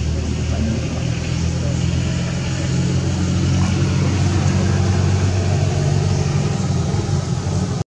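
An engine running steadily with a low, even hum, getting a little louder about three seconds in.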